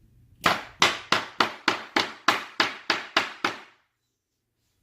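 Rubber mallet tapping a laminate plank, about eleven quick even knocks at three to four a second, driving the tongue-and-groove joint closed.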